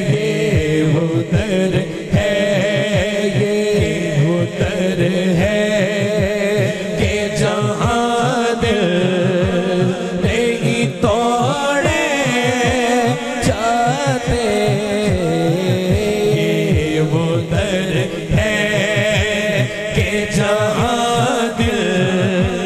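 A man singing a naat, an Urdu devotional poem, into a microphone through a sound system. He draws out long, winding melodic phrases over a steady low drone and a fast low beat.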